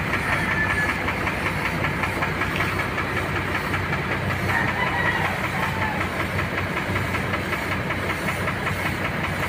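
Siphon-cup paint spray gun hissing steadily as it sprays the truck's front, over the steady running of an air compressor.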